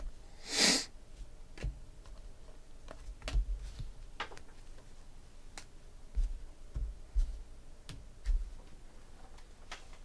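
Trading cards being handled and set down on a table: a short rushing swish about half a second in, then scattered light clicks and soft knocks at uneven intervals.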